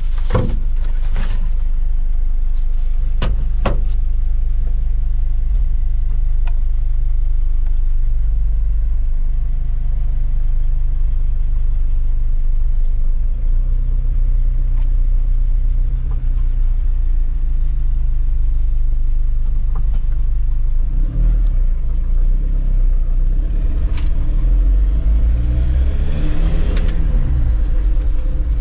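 Mitsubishi L300's common-rail turbo-intercooler diesel engine running steadily, then revved up and down several times in the last several seconds. A few sharp clicks sound in the first few seconds.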